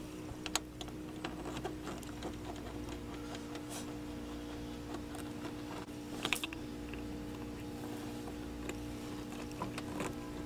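Scattered small plastic clicks and taps as the interior door trim of a 1992 Honda Civic is worked loose by hand and with a small tool around the door handle and window crank, with a short cluster of clicks about six seconds in. A steady faint hum runs underneath.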